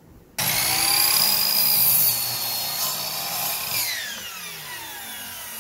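Electric sliding compound miter saw cutting through a wooden board, starting suddenly about half a second in. Near the end the motor is let go and the blade winds down in a falling whine.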